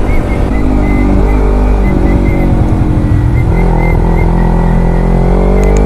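Motorcycle engine running under way, heard from the rider's helmet with wind noise. Its pitch rises near the end as it speeds up.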